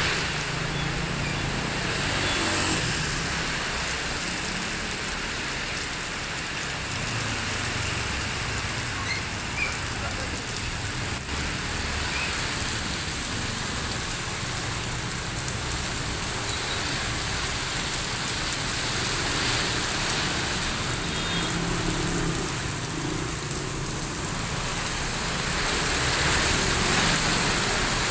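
Steady rain pouring down in a storm, an even hiss with a low rumble underneath.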